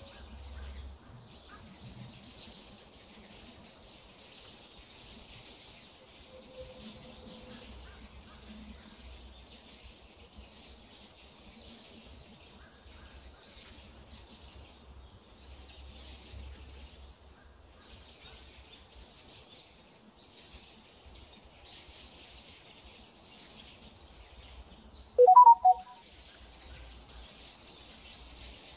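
Woodland ambience: a steady, high-pitched chirping chorus that swells and fades every second or two. Near the end comes one brief, loud two-part call.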